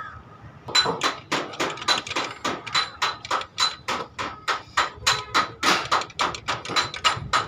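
Hammer striking metal rapidly and evenly, about three or four blows a second, each with a short metallic ring. The blows start about a second in.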